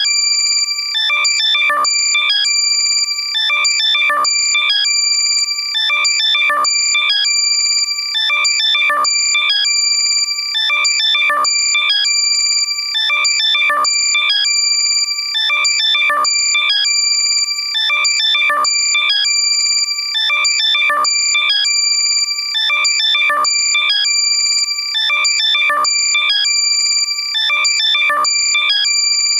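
Loud, compressed electronic alert sound made to locate lost AirPods: steady piercing high tones under a rapid run of chirping beeps that repeats every couple of seconds.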